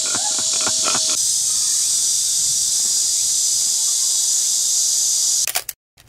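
Steady, loud chorus of insects buzzing, with a man's short laugh at the start; the buzzing cuts off suddenly near the end.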